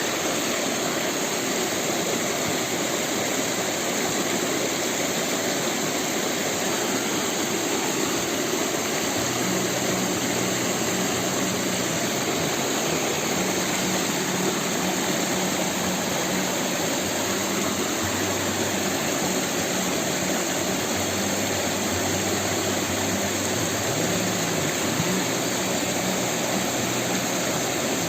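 Steady rushing of flowing river water. About nine seconds in, a low, steady engine hum joins it and keeps going.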